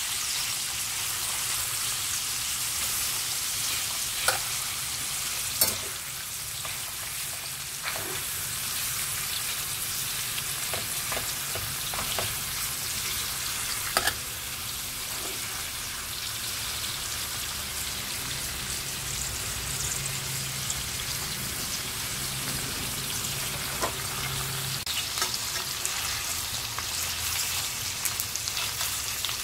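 Beef rib-finger strips sizzling steadily in butter in a stainless steel frying pan. A few sharp clicks of metal tongs against the pan ring out as the pieces are turned, the loudest about four, six and fourteen seconds in.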